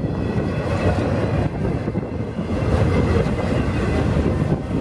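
CSX intermodal freight train's cars rolling past: a steady rumble of steel wheels on the rails.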